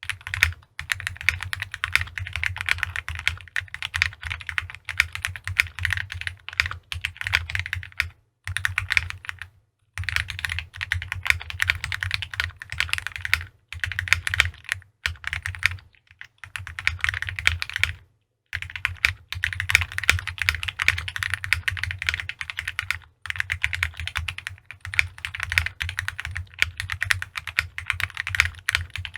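Fast, continuous typing on a 60% mechanical keyboard with FL-Esports Ice Mint linear switches, GMK keycaps and a polycarbonate tray-mount case: a dense stream of keystrokes broken by a few short pauses.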